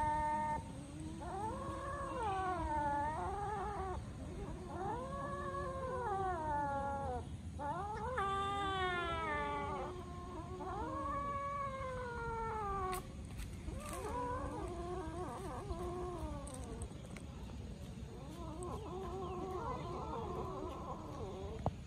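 Kittens meowing: a string of long, drawn-out meows that rise and fall in pitch, one after another every couple of seconds, with one quick wavering call about eight seconds in and fainter calls near the end.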